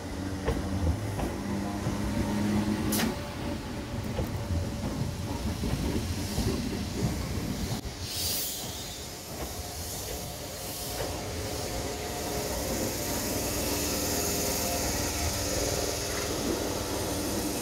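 Class 313 electric multiple unit running past on the track: a steady low rumble of wheels and motors, with a sharp click about three seconds in and a burst of air hissing around eight seconds in. A steady high hiss rises over the rumble from about twelve seconds in.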